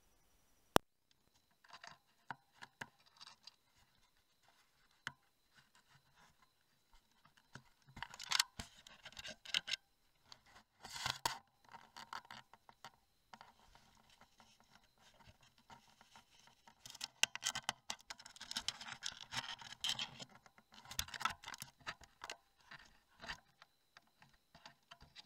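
An animal rubbing and scratching against the trail camera, its fur brushing the housing right at the microphone: irregular bursts of scratching and scraping, heaviest about a third of the way in and again past the middle. A single sharp click sounds about a second in.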